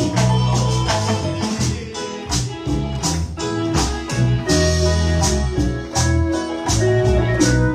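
Upbeat instrumental worship music with a steady percussion beat over bass and keyboard.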